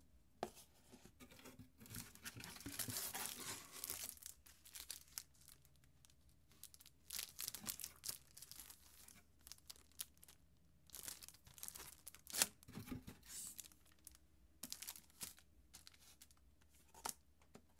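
Hands handling unboxing packaging: crinkling and rustling of a plastic-wrapped glass screen protector pack and a cardboard box, coming in several bursts with a few sharp taps, the sharpest about two-thirds of the way through.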